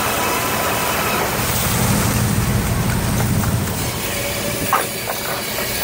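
Fishing boat's engine and deck machinery running steadily, the low rumble growing stronger for a couple of seconds in the middle.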